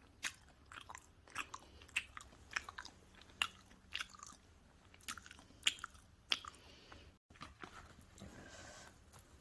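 Close-miked chewing of pizza, with crisp crunches roughly twice a second. Near the end, after a brief cut-out, there is a softer, duller stretch of noise.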